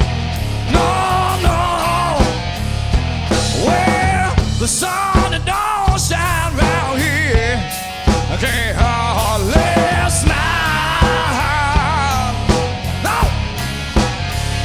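Live blues-rock band playing: electric guitar, bass and drums with a steady beat, under a lead line of bending, wavering sustained notes.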